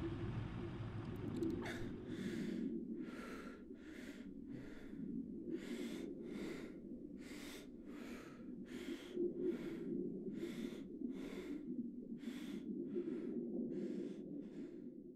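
A man's heavy, panicked breathing: quick, hard breaths about every two-thirds of a second, starting about two seconds in, over a steady low drone.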